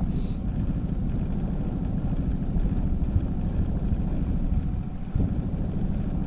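Honda outboard motor running steadily at trolling speed, a low rumble with no change in pace.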